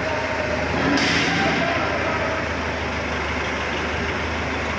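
Diesel engine of a hydraulic mobile crane running steadily with a low, even drone. About a second in comes a sudden harsh noise that fades away over the next second.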